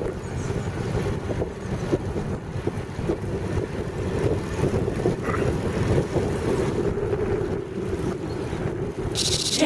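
Wind buffeting the microphone, a steady low rumble with a drone under it; a hiss comes in near the end.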